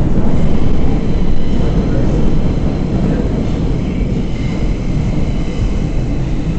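R142 subway car running through the tunnel, heard from inside: a loud, steady rumble of wheels on rail. A faint high squeal creeps in over the second half.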